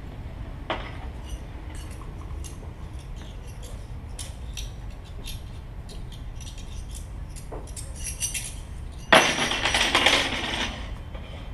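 Amplified plant materials being plucked and tapped: scattered small clicks and ticks, then a louder scraping rattle of about a second and a half near the end, over a steady low hum.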